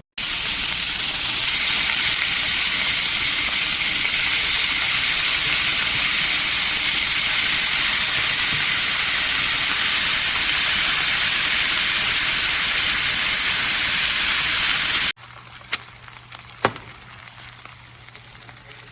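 Food sizzling loudly and steadily in a hot nonstick pan, cutting off abruptly about 15 seconds in. Two sharp clicks follow in the quieter stretch after it.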